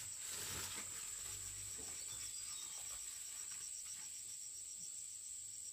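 Insects calling: a steady high-pitched trill with a rapid, evenly pulsed chirping over it, and a few faint rustles.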